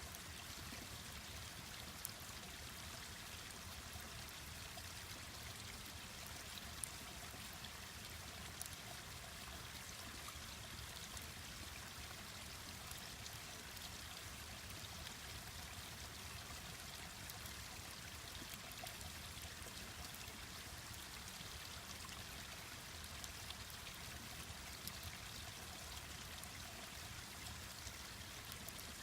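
Mountain stream rushing steadily, with a few sharp pops and crackles from a wood campfire scattered through it.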